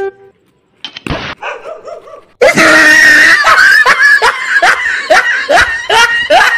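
Loud, shrieking laughter: a comic laugh sound effect in short rising bursts, two or three a second. It starts suddenly about two and a half seconds in and cuts off abruptly at the end.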